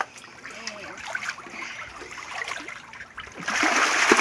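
Water sloshing lightly in a shallow backyard pool, then, about three and a half seconds in, a loud burst of splashing as a child kicks his legs at the surface.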